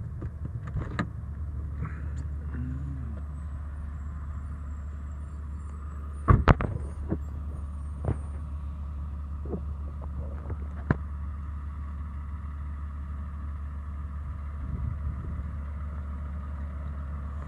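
Car engine idling: a steady low hum, with one sharp knock about six seconds in and a few lighter clicks.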